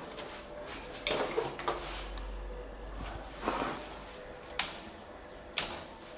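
Gloved hands rustling and knocking inside a steel electrical panel, then two sharp snaps about a second apart as modular circuit breakers are switched back on after tripping on a short circuit.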